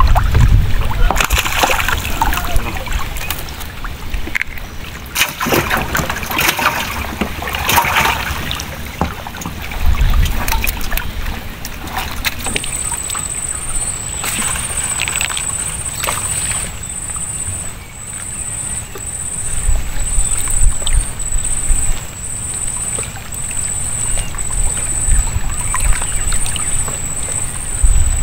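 Water splashing and sloshing against a small wooden boat's hull, with wind rumbling on the microphone. About halfway through, a high chirp starts up and keeps repeating about twice a second.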